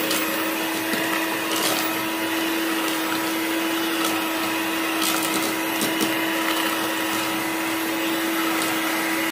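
Electric hand mixer running steadily at one speed with a constant hum, its wire beaters whisking thick cake batter in a stainless steel bowl, with a few sharp clicks along the way. The sound cuts off suddenly at the end.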